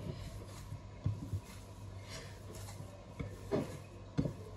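Hands kneading fresh chhena (curd cheese) on a ceramic plate: soft pressing and rubbing, with a few light knocks. This is the kneading stage that makes the chhena smooth so the mishti balls don't crack.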